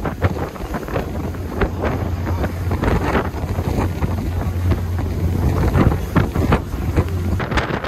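Wind buffeting the microphone in irregular gusts over a steady low drone, which stops near the end.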